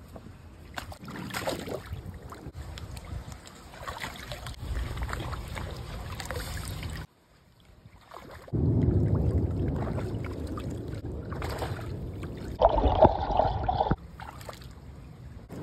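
Water splashing and sloshing in a shallow kiddie pool as Belgian Malinois dogs paw and wade after fish. The sound cuts out about seven seconds in, then comes back louder, with the heaviest splashing a little before the end.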